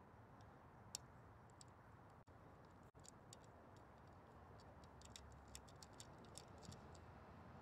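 Near silence: faint background hiss with scattered, irregular faint clicks, more of them about five to seven seconds in.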